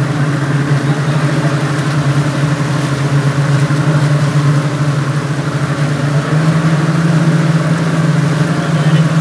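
Twin Yamaha 200 hp outboard motors running at speed in a steady drone, with the rush of the wake beneath. The engine pitch steps up slightly about six seconds in.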